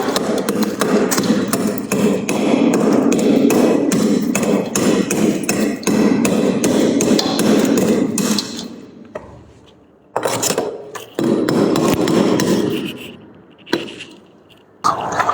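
Freezer frost ice crunching in rapid, dense strokes for about eight seconds, then quieter pauses broken by a few shorter bursts and a single sharp crack.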